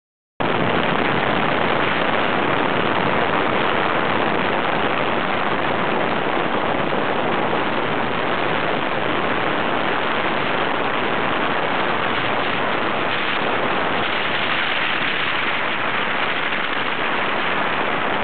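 Motorboat running fast on a river: a steady, dense rush of wind on the microphone and water along the hull, with no distinct engine note.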